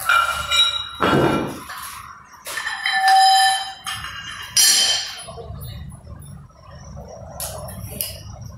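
Small metal change plates and a collar clinking and ringing against a barbell's steel sleeve as plates are stripped off and slid on, a run of separate clanks, some ringing for up to a second.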